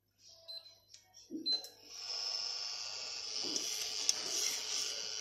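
Touch-control electric hob beeping twice as it is switched on. From about two seconds in, a steady high hiss with a few sharp clicks comes from the hob heating a stainless steel pot of water and coffee.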